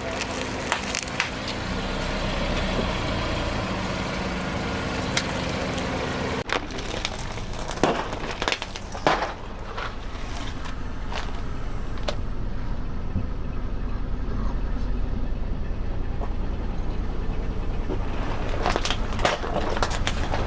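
A car's engine running at low speed as its tyres roll over objects and crush them, with scattered sharp cracks and snaps: a cluster around eight to nine seconds in and several more near the end.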